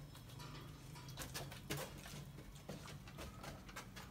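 Rottweiler-cross puppy chewing and crunching frozen chicken bones: a faint, irregular run of crunches and clicks.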